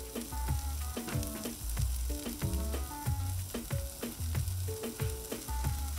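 Diced onions sizzling in oil on a hot steel griddle top, a steady hiss. Background music with a regular drum beat and bass line plays over it.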